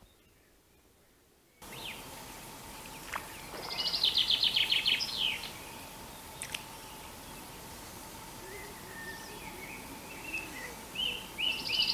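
Near silence for a moment, then outdoor ambience cuts in suddenly: a songbird sings a rapid trill of repeated high notes, twice several seconds apart, with scattered chirps between, over a steady background hiss and a faint steady hum.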